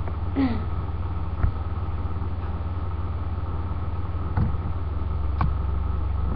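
Steady low electrical hum and hiss from a webcam microphone, with a few faint clicks.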